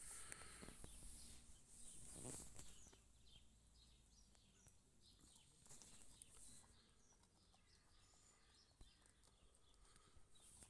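Near silence: faint birds chirping in the background, with a few soft clicks.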